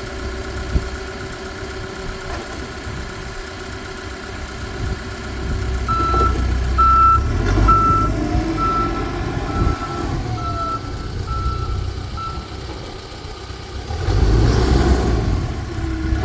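Case 580N backhoe's diesel engine running, with its reverse alarm beeping steadily, about nine beeps at roughly one and a half a second, as the machine backs up. The engine grows louder about two seconds before the end.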